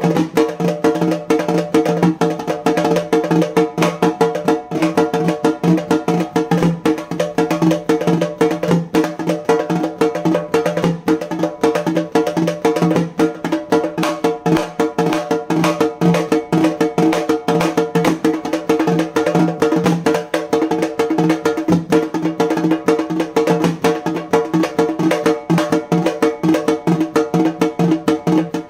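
Halgi, a Maharashtrian frame drum, played fast with two sticks: a dense, unbroken stream of sharp strokes over the ringing tone of the drum head.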